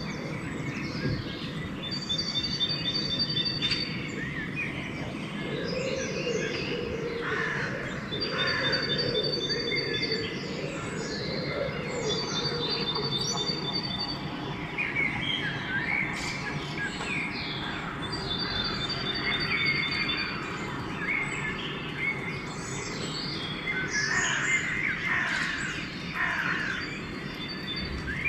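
Dawn chorus of several songbirds singing and calling at once over a steady low background rumble. A high, thin, rapid trill comes back several times.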